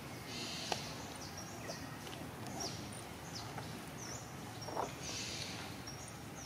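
Small birds chirping with short, high, sweeping calls, repeated throughout over a steady outdoor hiss. A couple of faint ticks come near the start and about two-thirds of the way through.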